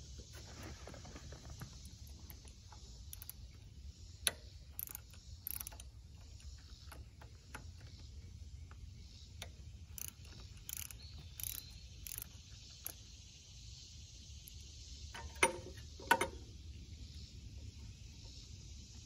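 Hand ratchet wrench clicking as bolts on a tractor's sheet-metal panel are turned, with scattered small metal clicks and a few sharper metal knocks.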